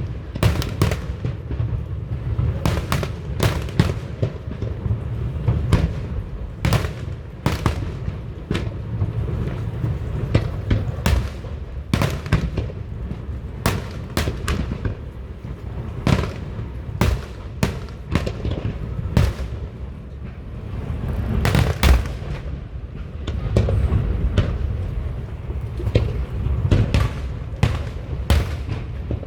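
Fireworks display: a rapid, continuous barrage of aerial shell bursts and crackling reports, many a second at times, over a steady low rumble of booms rolling and echoing.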